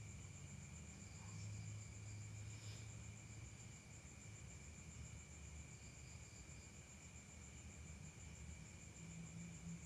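Faint, steady high-pitched insect trilling, with a low hum beneath.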